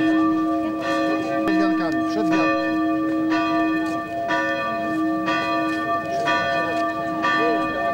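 Church bells ringing, a new strike about once a second over a long sustained ringing hum, with crowd voices murmuring underneath.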